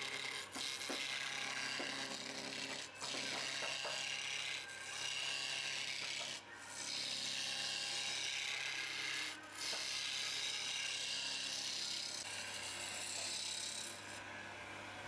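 Wood lathe spinning a spindle blank while a hand-held turning tool cuts it: a steady hissing scrape of shavings peeling off over the lathe's low hum, broken by a few short gaps. Near the end the cutting stops and only the lathe's hum is left.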